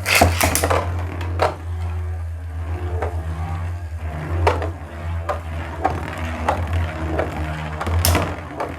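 Two Beyblade spinning tops, Tornado Destroyer and Tornado Leone, battling in a plastic stadium. A quick run of sharp clicks comes at the start. Then comes a steady low hum from the spinning tops, broken by clicks as they clash about every second. A loud hit comes near the end, after which the hum fades.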